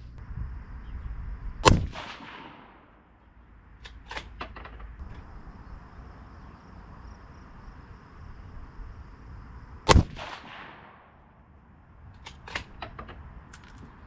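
Two rifle shots from a bolt-action Sig Cross in 6.5 Creedmoor, about eight seconds apart, each with a fading echo. A couple of seconds after each shot comes a quick run of metallic clicks as the bolt is worked to chamber the next round.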